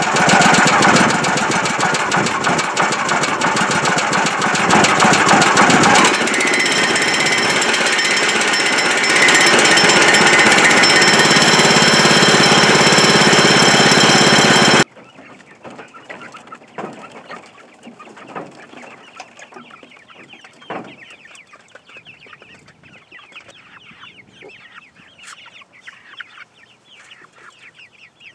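Sawmill's single-cylinder OHV gasoline engine running loud and steady, its sound stepping up about six and again about nine seconds in. Halfway through it stops abruptly, giving way to a flock of hens clucking.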